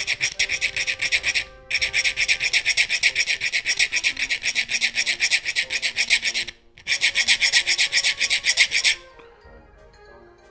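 Hand file scraping metal in quick, even back-and-forth strokes, squaring off the back of a small OTF switchblade part so the catch will hold. The strokes break off briefly twice and stop shortly before the end.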